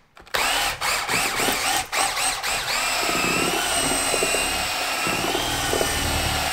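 Power drill spinning a small paint-mixer paddle through drywall joint compound in a plastic bucket, whipping the mud smooth. After a brief pause the motor revs up and eases off several times in quick succession, then runs steadily from about three seconds in.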